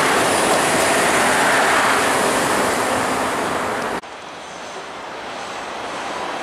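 CTA 2600-series 'L' rapid-transit train passing close by, a loud steady rush of wheels on rail. About four seconds in it cuts off abruptly to quieter rail noise that slowly grows louder as another train approaches.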